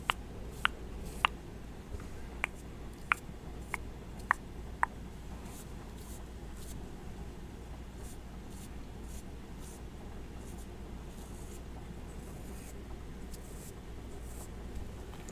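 A run of sharp, short clicks made by hands close to the microphone, about eight of them roughly every half second, stopping about five seconds in. Faint soft rustling and a steady low background hum follow.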